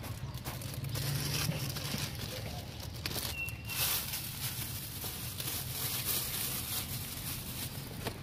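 Thin plastic bag rustling and crinkling in short irregular rustles as fried meatballs on wooden skewers are packed into it by hand, over a steady low hum.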